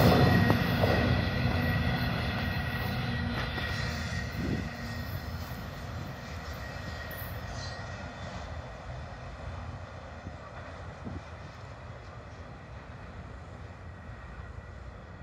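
CN freight train rolling away after its last car has passed, the rumble of its wheels on the rails fading steadily.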